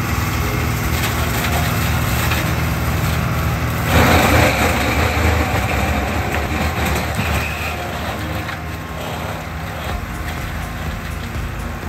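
Tractor engine running under load, driving a rear-mounted Vandaele Forestmaster forestry mulching flail whose rotor shreds brush and saplings. About four seconds in the shredding noise jumps louder as the flail bites into the scrub, then eases off gradually.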